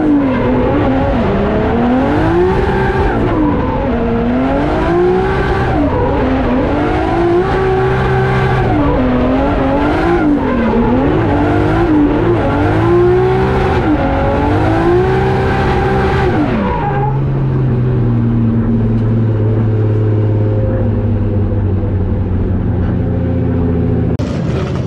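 Toyota 1JZ straight-six in a drift car, its revs rising and falling again and again through a drift run, with tyres skidding. About 17 seconds in the revs drop sharply and the engine settles to a steady idle.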